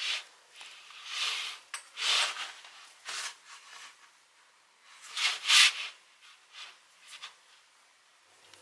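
Yarn rubbing as it is drawn through the bag's mesh in cross-stitch embroidery: a series of short swishes, the loudest pair about five seconds in.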